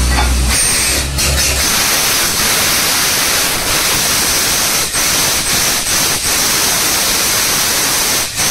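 Compressed air and water blasting out of a borewell being drilled: a loud, steady rushing hiss with a few brief dips. A low hum cuts off about half a second in.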